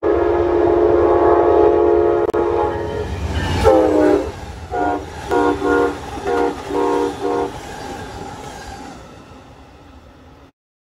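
Amtrak P42DC diesel locomotive's air horn: a long chord that drops in pitch as the locomotive passes, then a run of about six short blasts, over the rumble of the train. The sound fades away near the end.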